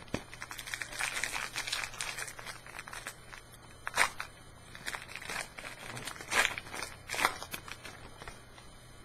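Trading-card pack wrapper being crinkled and torn open by hand, a rustling crackle with a few sharper crackles about four, six and a half and seven seconds in.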